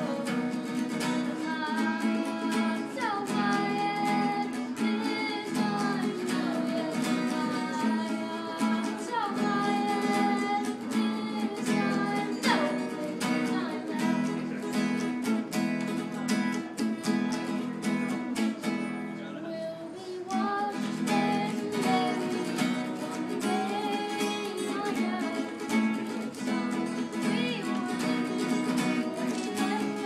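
A boy singing to his own strummed acoustic guitar, with a steady rhythmic strum under the vocal line. The strumming thins out briefly about two-thirds of the way through.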